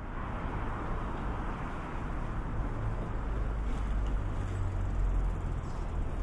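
City street ambience: a steady wash of distant traffic with a deep rumble underneath.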